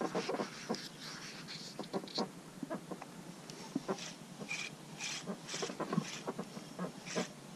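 Irregular soft clicks and knocks from a spinning rod and reel being worked during a lure retrieve. From about four seconds in, a bird calls in short, repeated high notes about half a second apart.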